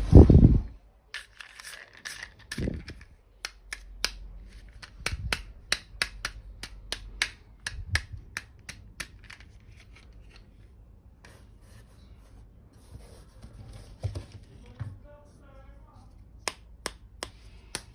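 Small plastic toy kitchen pieces clicking and tapping as they are handled and set down, with a heavier thump at the start.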